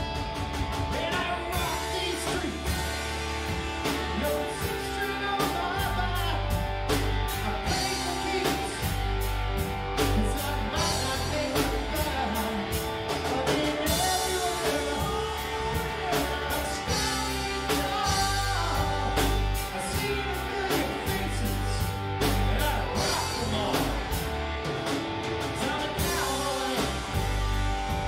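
Rock band playing live: a singer over guitar, bass and drum kit, with a steady beat.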